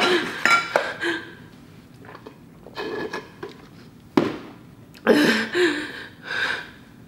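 A woman whimpering and breathing hard in short, broken bursts, in pain and distress from the burn of extremely spicy fire noodles. A sudden sharp sound comes about four seconds in.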